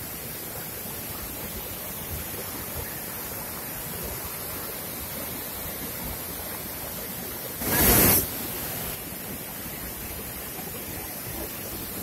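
Steady rushing of a waterfall pouring into its pool, with the rapids of the rocky stream below. About eight seconds in, a loud burst of noise lasts about half a second.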